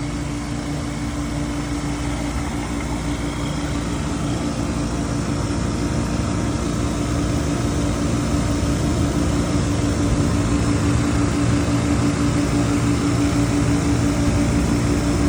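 Refrigerant recovery machine running steadily, its compressor pulling the last refrigerant out of an air conditioner toward a vacuum, with a constant hum that slowly grows louder.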